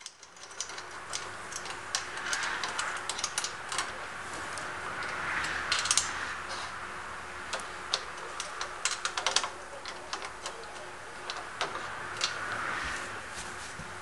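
Irregular small metallic clicks and taps from the tower boom's clamshell bracket and its hardware knocking against the chrome tower tube as it is handled and snugged into position, with a soft rubbing sound swelling a few times in between.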